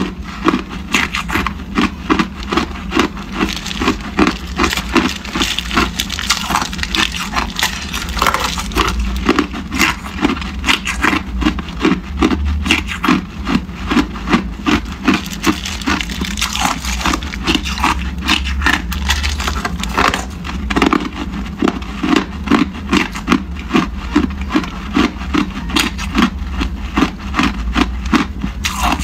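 Hard clear ice being chewed: steady crunching at about two bites a second.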